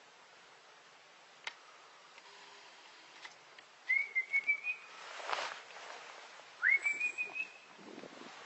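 Two short whistled notes, about two and a half seconds apart, each sliding up and then wavering briefly at a steady high pitch. A brief rustle falls between them.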